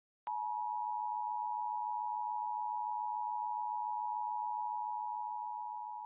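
A single steady electronic beep tone, one pitch near 1 kHz, switched on with a click just after the start and held for about six seconds, fading slightly at the end.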